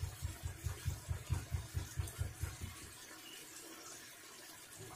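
A wooden spoon stirring a stir fry in a nonstick frying pan, making soft low knocks about four times a second, which stop about three seconds in. Under it, the honey–soy sauce simmers and sizzles quietly around the kielbasa, peppers and onions.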